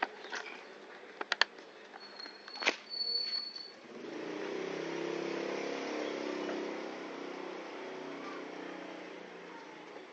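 A few sharp clicks of plastic parts and tools being handled, then from about four seconds in a motorcycle engine running with a steady low hum that slowly fades.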